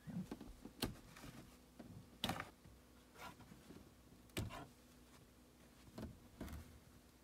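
Scattered soft knocks, clicks and rustles of someone moving about and handling things inside a parked car's cabin, about one short sound a second.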